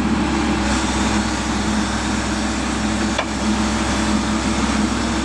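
Volvo excavator's diesel engine running steadily.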